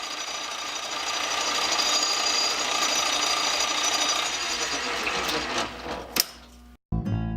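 Power tool running steadily for about six seconds with a fixed high whine, then dying away, followed by a sharp click. Guitar music starts just before the end.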